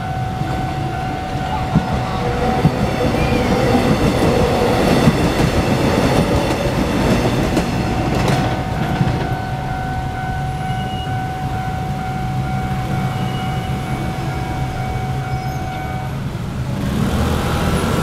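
A Taiwan Railways EMU500 electric commuter train runs through a level crossing, wheels clacking on the rails, loudest in the first half. The crossing's warning bell rings steadily throughout and stops near the end. Scooters then start up and pull across.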